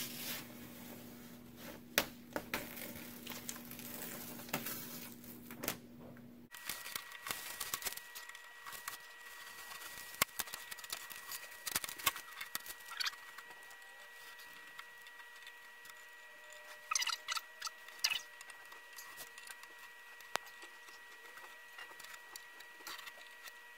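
Plastic transfer film being peeled off a painted wooden cornhole board and crumpled by hand: soft, scattered crinkles, rustles and small clicks, with a few louder rustles about seventeen seconds in.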